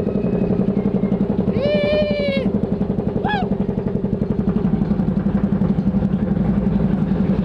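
Theme-park water ride boat running along its course with a steady, fast, even rattle and rumble. A rider lets out a high-pitched cry about two seconds in, and there is a short falling squeak a second later.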